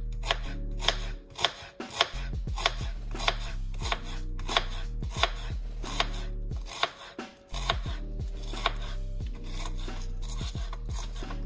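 Chef's knife finely chopping onions on a cutting board: a regular run of sharp knocks, about two a second, with short pauses a little over a second in and around seven seconds in.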